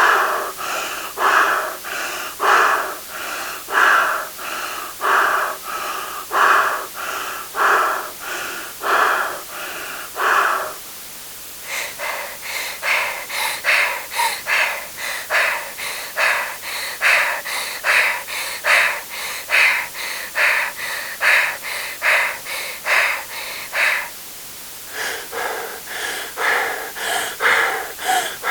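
A person panting: quick, even breaths in and out, about one and a half a second, with the louder out-breaths alternating with softer in-breaths. It comes as three separate takes, with short pauses about eleven seconds and twenty-four seconds in.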